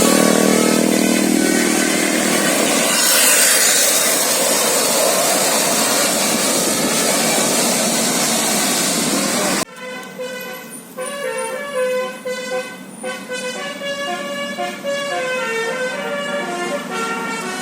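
Loud rushing noise for about the first half, then, after a sudden cut, an Indonesian bus's musical 'basuri' telolet air horn playing a tune of many short pitched notes.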